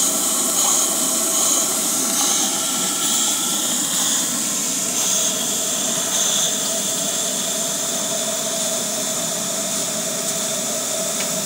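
Model McOnie's steam engine running on live steam, with a steady hiss of steam and a faint regular pulse in the hiss during the first few seconds. The boiler is running down: the engine draws more steam than the small boiler can supply, and the pressure falls.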